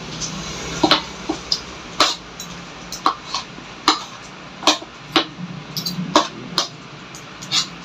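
Metal spoon and fork clinking and scraping against a ceramic plate of rice during a meal, a dozen or so sharp clinks at irregular intervals.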